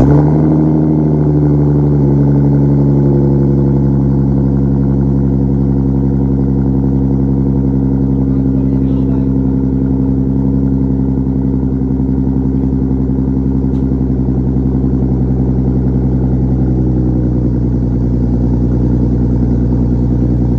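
Ford Mustang GT V8 with a muffler delete and stock X-pipe, just after a cold start: the exhaust flares briefly, then settles about two seconds in to a steady idle that runs unchanged.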